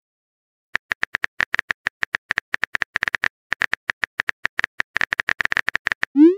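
Keyboard typing sound effect of a texting-story chat animation: a fast, uneven run of short high clicks, starting just under a second in, as the next message is typed out. A short rising swoop begins right at the end.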